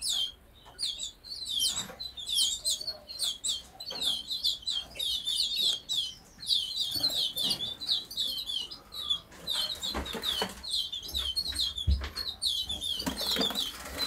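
Canaries and goldfinch mules in cages chirping busily: a dense run of short, high chirps, several a second. A few soft low thumps come about two-thirds of the way in.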